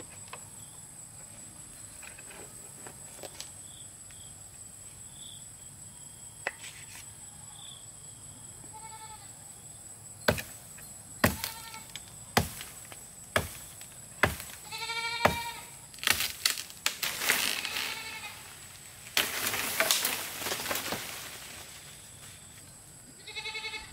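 Five sharp knocks about a second apart, then a short bleat, followed by a few seconds of rustling leaves and branches, and another bleat near the end.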